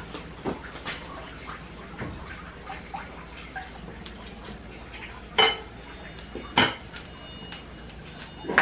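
Metal cooking pot and lid being handled over a wood fire: scattered light clanks and knocks, with two louder knocks in the second half and another near the end.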